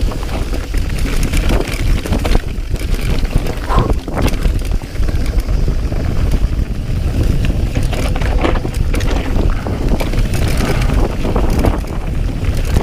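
Mountain bike riding fast down a rocky dirt trail: a constant low rumble of wind on the microphone, with the frequent rattles and knocks of the tyres and bike over the rough ground.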